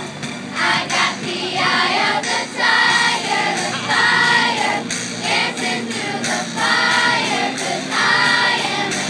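Fifth-grade children's chorus singing a song together, in phrases that swell and fall about once a second.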